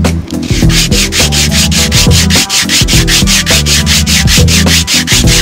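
Hand sanding: a small piece rubbed back and forth on a sheet of sandpaper laid flat, with quick, even hissing strokes of about six a second.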